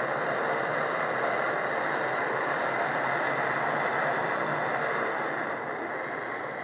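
Open fire of coconut shells and wood burning steadily, a dense rushing crackle of flame.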